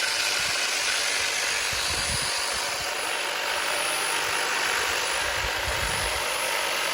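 Ego cordless multi-tool with its hedge trimmer attachment running steadily while trimming the top of a hedge.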